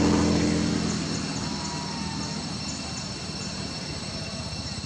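Engine noise, loudest at the start and fading away within the first second or so, leaving a steady background hum.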